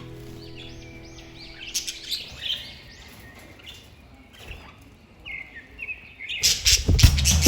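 Budgerigars chirping in a string of short, high calls. Music fades out in the first couple of seconds, and loud drum-backed music comes in near the end.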